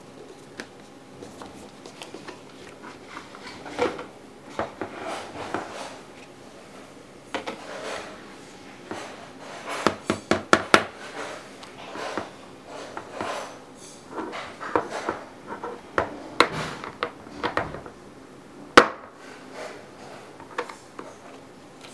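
Hands handling a clear plastic phone box and its cardboard sleeve: taps, scrapes and rustles, with a quick run of clicks about halfway through and one sharp click near the end, the loudest.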